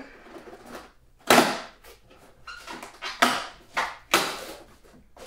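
A cardboard shipping box being torn open by hand: a string of short ripping and scraping rasps of tape and flaps pulled apart, the loudest about a second in and several more about three to four seconds in, with crinkling between them.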